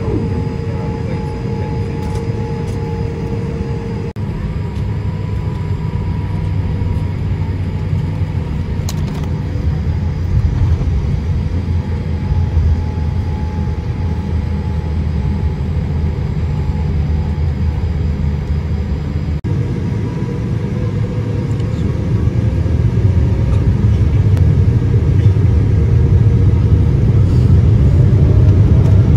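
Cabin noise inside a Boeing 787-8 as it taxis: a steady low rumble from the engines and rolling wheels. The sound shifts abruptly twice, and it grows louder over the last several seconds as the take-off sequence begins.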